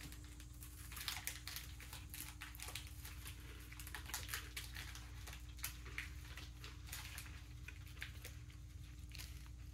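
Close, faint chewing of a crisp chocolate-covered wafer bar: many small irregular crunches and crackles, only a little crunchy.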